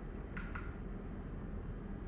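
Steady low room hum, with two short light clicks close together about half a second in.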